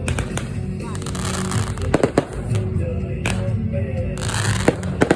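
Fireworks going off: about six sharp bangs, two of them close together, over a steady low rumble.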